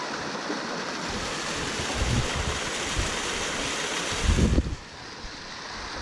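Small waterfall splashing down over rock: a steady rush of falling water. Wind buffets the microphone with low rumbling gusts about two seconds in and again just after four seconds, and the rushing turns quieter soon after.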